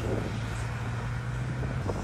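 Diesel engine of heavy earthmoving machinery running with a steady low drone, its note dropping slightly near the end.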